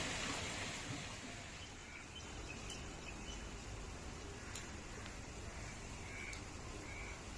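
Steady rain falling, an even hiss, with a bird calling faintly a few times and a few light ticks.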